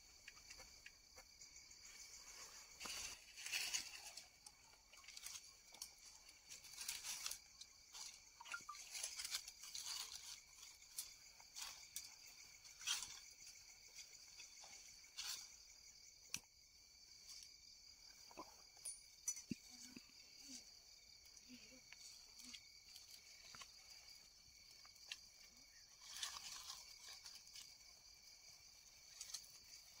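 Faint, steady insect chorus of high chirring, with scattered light clicks and rustles throughout.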